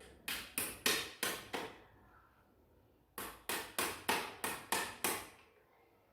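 Rapid series of sharp knocks, about three a second, in two runs: six strikes, a pause of about a second and a half, then about seven more.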